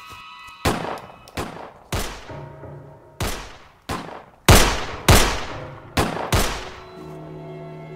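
Pistol gunfire in a shootout: about ten sharp shots at irregular intervals, each with a short ringing tail, over faint background music.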